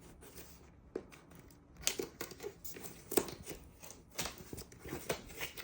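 Packaging of a diamond painting kit being handled and opened by hand: irregular rustling and crinkling with several sharp clicks and snaps.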